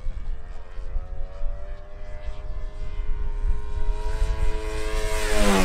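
Radio-controlled aerobatic model airplane's motor and propeller in flight, its pitch climbing slowly. Near the end it gets loud and the pitch drops sharply as the plane sweeps past close by. Low wind rumble on the microphone underneath.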